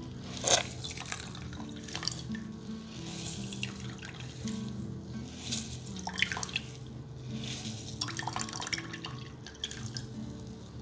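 Juice wrung from grated zucchini in a cheesecloth, trickling and splashing into a glass bowl of liquid in several spurts, over soft background music.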